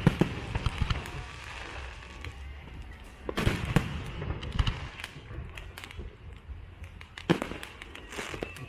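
Aerial fireworks bursting: sharp bangs right at the start, a cluster around three and a half seconds in and another near seven seconds, each trailing off into crackling.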